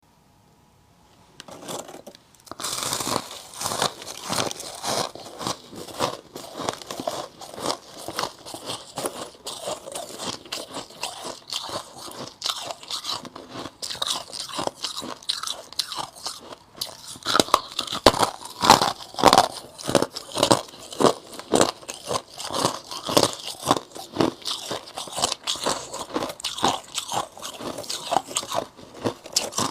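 Close-up crunching of white frost ice chunks being bitten and chewed, a dense, irregular run of sharp crunches starting about a second and a half in.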